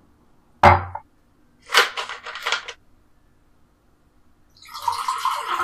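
A sharp knock on the kitchen counter, then about a second of crackly plastic handling. Near the end, mango drink pours and glugs from a plastic bottle into a drinking glass.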